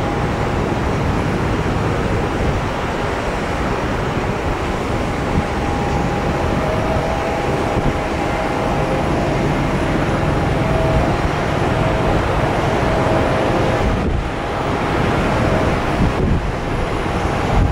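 Airbus A320's jet engines during landing and rollout: a steady broad roar with a high whine held throughout, and a second whine joining about six seconds in. Wind on the microphone.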